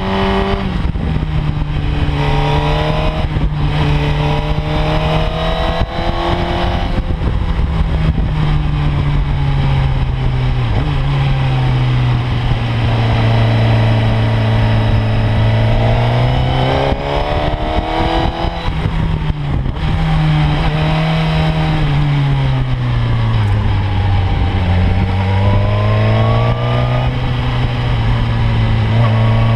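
Sport motorcycle engine heard from an onboard camera while riding, its pitch rising and falling again and again as the rider accelerates and eases off. Steady wind rush runs underneath.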